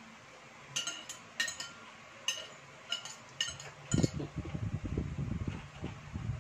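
A spoon and fork clink against a ceramic plate, about six sharp clinks in the first four seconds. From about four seconds in come close, rapid chewing and mouth sounds of someone eating.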